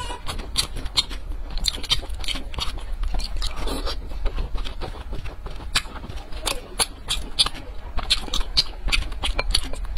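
Close-miked chewing of meat-filled dumplings, with many irregular wet mouth clicks and smacks, over a low steady hum.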